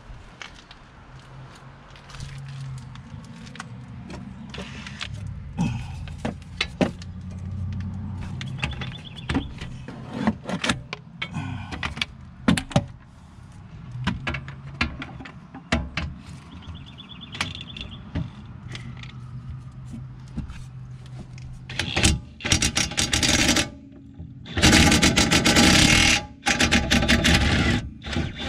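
Cordless DeWalt XR impact wrench hammering on a seized 17 mm brake caliper bolt in three loud bursts near the end, without getting the bolt to budge. Before that come scattered clicks and knocks of the tool being handled and fitted.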